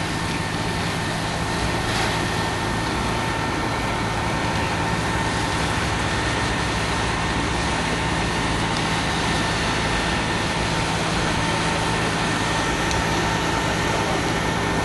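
A heavy engine running steadily at idle: a constant low hum with faint steady high tones over it.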